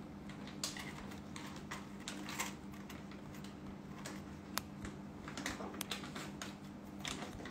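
Quiet room tone with a steady low hum, broken by scattered light clicks and short soft rustles, about one every second or two.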